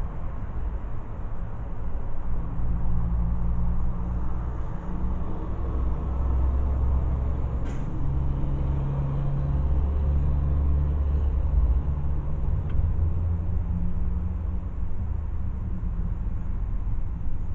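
A motor vehicle's engine running as a low rumble whose pitch shifts up and down, with a single sharp click about eight seconds in.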